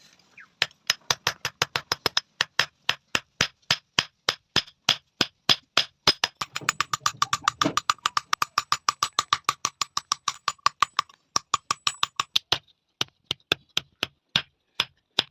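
Rapid, even hammer blows, about four a second, on bearing steel being forged on an anvil. A ringing tone carries under the blows through the middle, and the blows come more sparsely near the end.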